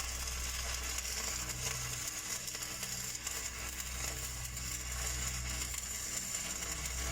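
Stick (SMAW) welding arc running downhill on a large steel pipe: a steady crackling sizzle full of fine irregular pops, over a steady low hum.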